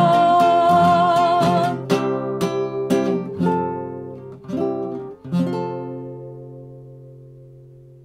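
A woman's held sung note with vibrato ends about two seconds in. An acoustic guitar then plucks a handful of closing notes and a final chord that rings on and slowly fades.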